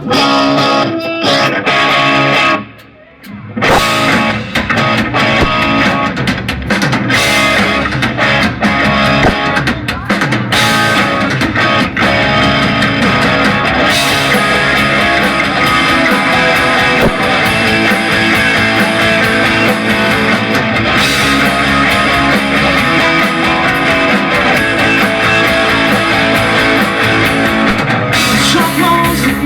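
Live rock band playing an instrumental intro with electric guitars and drum kit. There is a brief break about three seconds in, then the full band comes back in.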